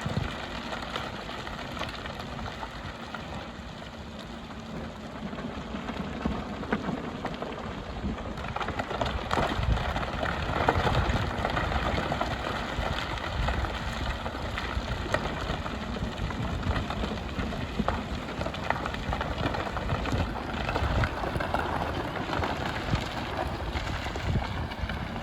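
Hyundai HX300 excavator working aggregate, its diesel engine running under a dense crunching and rattling of stones and gravel as the bucket scrapes and gathers the pile. The crunching grows louder about a third of the way in.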